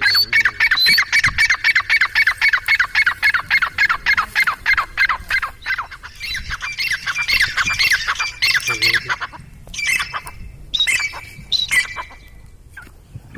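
A bird calling in a fast run of short, high, downward-sliding notes, about four a second, for most of the stretch. It then gives a few separate calls before falling quiet near the end.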